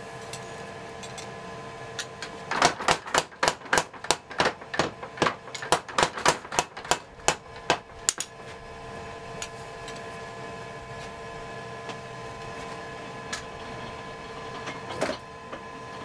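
Rapid hammer blows on steel, about four strikes a second for some six seconds, starting about two seconds in, with a couple more strikes near the end. A steady hum runs underneath.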